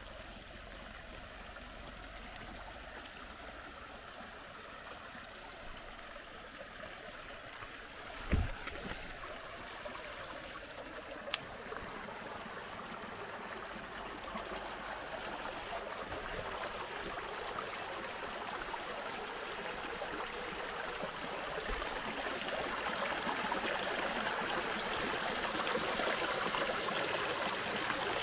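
Flowing water of a stream, an even rushing that grows steadily louder. A single low thump about eight seconds in, and a small click a few seconds later.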